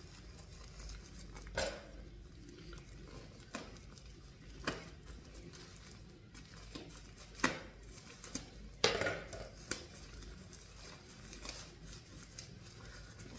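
Nail clippers snipping and picking at parcel packaging: a handful of sharp, irregular clicks with faint rustling in between, as the packaging is hard to get open without scissors.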